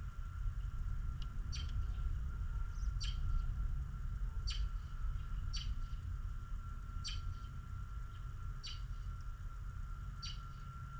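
A bird repeating a single short, high chirp about every second and a half, over a low steady rumble and a faint steady whine.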